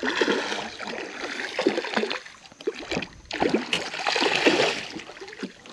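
Water splashing in irregular bursts, with quieter gaps between them: a hooked redfish thrashing at the surface beside the boat.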